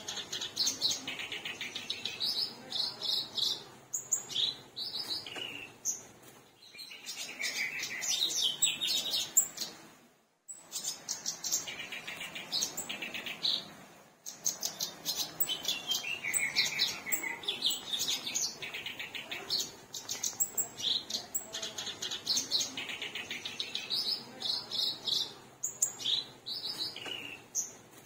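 Kerakbasi, a reed warbler, singing continuously in long runs of rapid, chattering high phrases. The song is broken by a few short pauses, one about ten seconds in.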